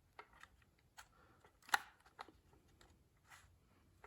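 Faint handling of plastic car interior trim: a few scattered light clicks and rubs, the sharpest a little before halfway.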